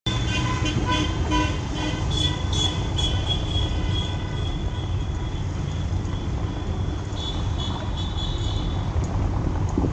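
Busy street traffic with a steady low rumble of engines and tyres, and car horns honking: several short beeps in the first few seconds, then another honk near the end.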